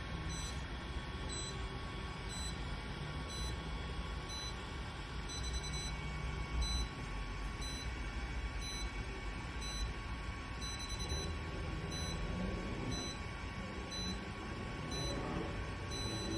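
K-Laser class 4 therapy laser beeping in short, even pips about once a second while it emits, the signal that an acupuncture point is being treated, over a faint steady tone.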